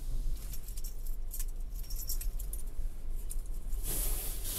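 Automatic car-wash machine spraying water onto the car, heard from inside the cabin: a crackling patter on the body and glass over a steady low rumble. A heavier rush of spray comes about four seconds in.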